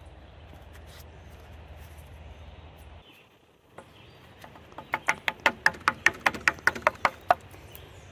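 A metal sardine tin held upside down is tapped rapidly against a wooden board to knock the sardines out: about a dozen quick, sharp knocks in a steady rhythm, starting about five seconds in and stopping abruptly.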